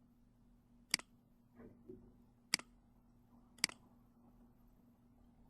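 Three sharp computer mouse clicks, about one, two and a half and three and a half seconds in, with a softer, fainter handling sound between the first two, over a faint steady hum.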